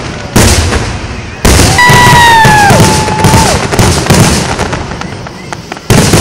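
Fireworks bursting overhead: three loud bangs with crackling between. After the second bang a high whistling tone sounds for nearly two seconds, falling slightly in pitch and then holding, like a whistling shell.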